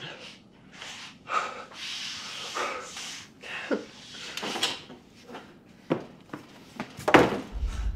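A man gasping and sobbing in ragged, uneven breaths. A sharp thump about seven seconds in is the loudest sound, and a low rumble starts just after it.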